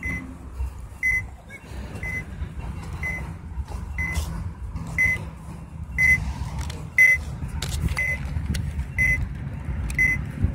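Nerf Laser Ops laser-tag blaster beeping its start countdown: a short high beep about once a second. A low rumble of handling noise from the phone microphone being carried runs underneath.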